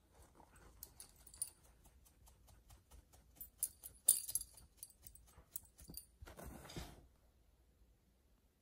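A dog making a run of irregular clicks and taps for about six seconds, then a short breathy rush of noise lasting under a second.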